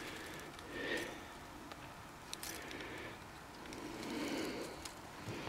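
Faint, muffled voice sounds with light rustling and crackling of dry grass close to the microphone.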